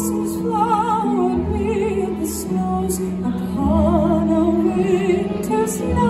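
Slow sung music: a voice with wide vibrato holds long notes over sustained low accompaniment notes that shift every second or two.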